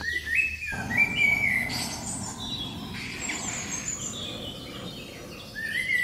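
Small birds chirping and singing: short whistled phrases that step up in pitch, once at the start and again near the end, with scattered higher chirps between. Under them there is a steady rushing noise.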